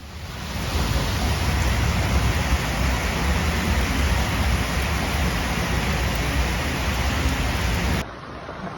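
Torrential rain pouring down: a dense, steady hiss with a low rumble underneath. About eight seconds in it cuts suddenly to a quieter, duller wash of water.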